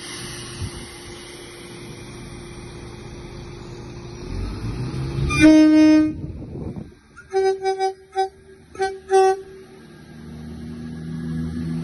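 Train horn: one loud blast about five seconds in, then a string of short toots a little higher in pitch between about seven and nine seconds. A steady hum and rumble lies under the first half.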